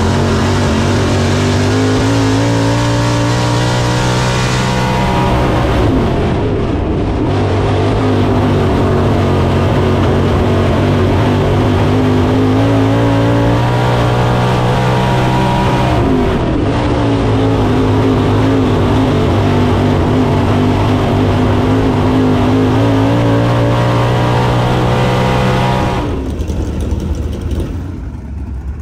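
Dirt super late model's racing V8 heard from inside the cockpit at full throttle around the track, its note rising and falling through straights and turns, with two brief lifts about six and sixteen seconds in. The engine has a miss the team was still chasing. Near the end it gives way to the engine heard more quietly from outside, in the pits.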